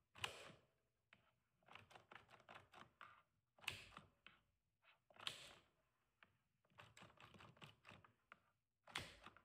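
Pushbuttons on a motor-control pushbutton station being pressed and released, with control relays clicking in and out as the pilot lights switch on. A handful of sharp clacks, with runs of quick, lighter clicking between them.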